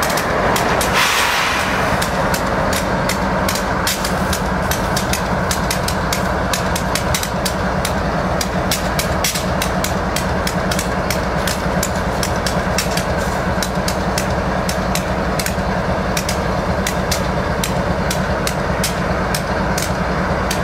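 GE AC45CCTE diesel-electric locomotive standing with its engine running steadily, a low hum throughout. About a second in comes a short burst of hiss, and sharp clicks recur all the way through.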